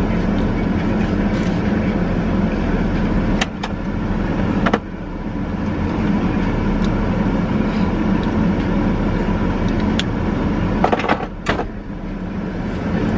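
A steady low mechanical hum, with a few short sharp clicks now and then.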